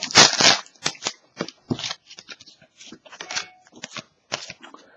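Hockey trading cards being handled and slid against each other as a pack is gone through: a run of short, irregular card-on-card slides and clicks, the first the loudest.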